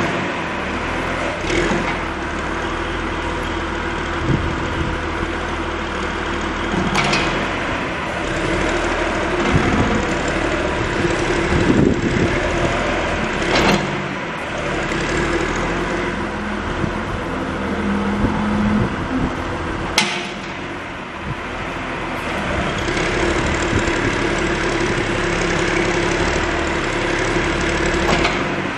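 John Deere 710 backhoe loader's diesel engine running steadily, its note shifting a little, with a few sharp knocks about seven, fourteen and twenty seconds in.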